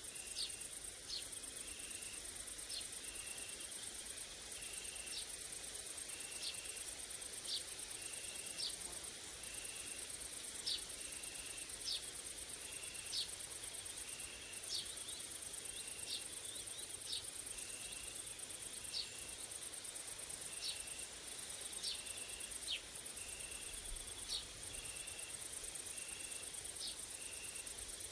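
A summer chorus of grasshoppers and crickets: a steady, very high-pitched trill. Under it a short chirp repeats about once a second, with brief sharp high notes scattered irregularly.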